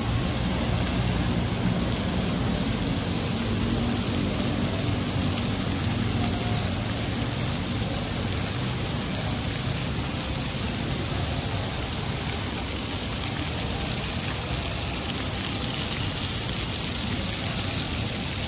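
Steady city-street ambience: water from ground-level fountain jets splashing onto wet paving, mixed with a low rumble of road traffic that is heavier in the first half.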